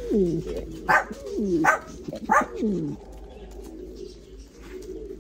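Young Valencian pouter pigeon cooing: three coos in the first three seconds, each falling in pitch, with short sharp clicks between them. The cooing stops about three seconds in.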